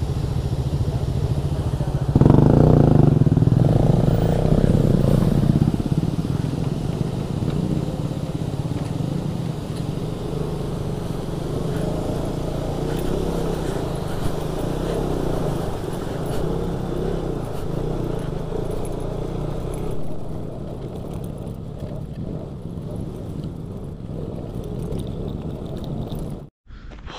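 Motorcycle engine running while riding a rough off-road track. It gets louder about two seconds in and eases off over the next few seconds, and the sound cuts off abruptly near the end.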